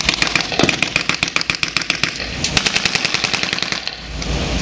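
Bursts of rapid automatic gunfire, blanks fired in a battle re-enactment, at roughly ten shots a second, easing off shortly before the end.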